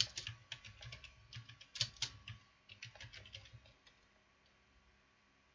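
Typing on a computer keyboard: a quick run of keystrokes that stops a little under four seconds in.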